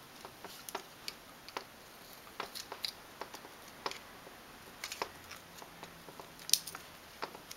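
Scattered small clicks and taps of plastic and metal: the heater-element wires being pressed into a 3D printer print head's plastic housing with the tip of a pair of pliers, the sharpest click about six and a half seconds in.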